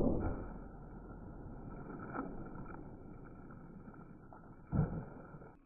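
Muffled, dull rumbling noise that fades, then a single short thump near the end: an M500 firecracker going off underwater in a small water tank.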